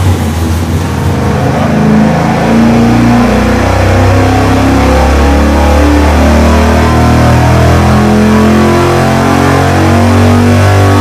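Big-block Chevy 454 V8 with a hydraulic roller camshaft running loud at wide-open throttle on an engine dyno, pulling up through the rev range from about 3,000 to 6,000 rpm.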